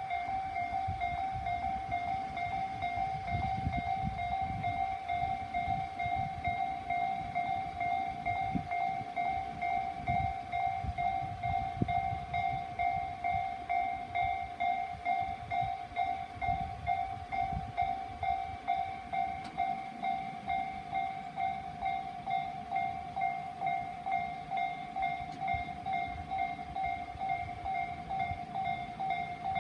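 Electronic warning bell of a Japanese railway level crossing ringing in a fast, even, repeating ding, the signal that a train is approaching and the barriers are down. A low uneven rumble runs beneath it, strongest in the first half.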